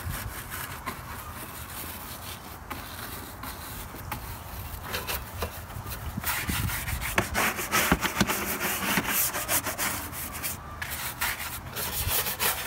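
Stiff plastic-bristled hand brush scrubbing wet, degreaser-covered engine-bay hoses and parts in repeated strokes, which get busier and louder about halfway through.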